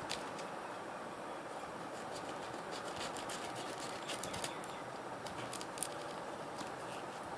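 Faint scratching and small scattered clicks of plastic model-kit parts and their bags being handled, over a steady low hiss, with one slightly sharper click near the end.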